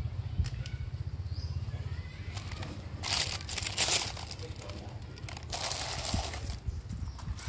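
Two bursts of crinkling from a crisp sheet being handled, about three seconds in and again about five and a half seconds in. A low rumble underneath fades out in the first two seconds.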